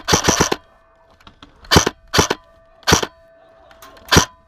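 Airsoft gun firing: a quick run of about four shots at the start, then four single shots spaced over the next few seconds.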